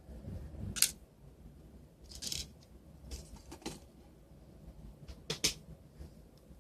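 Sharp little clicks and short scrapes of small phone parts and tools being handled during a Palm Treo 755p teardown: a handful of separate clicks, with a quick pair close together about five seconds in.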